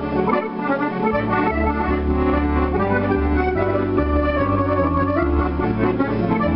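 Zero Sette electronic accordion playing a tune: right-hand melody and chords over a bass that alternates between two low notes, oom-pah style. The bass drops out briefly about half a second to a second in.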